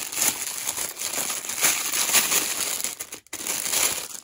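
Clear plastic wrapping bag crinkling as it is handled and pulled off a small metal unit, with one brief pause a little after three seconds in.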